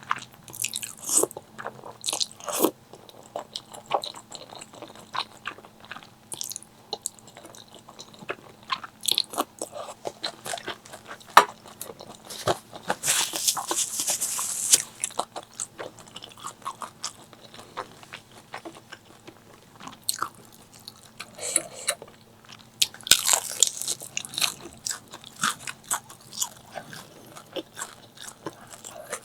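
A person eating close to the microphone: crisp crunching bites and chewing of crunchy fried food, with many sharp crackles. Two longer hissing stretches come near the middle and again about four fifths of the way through.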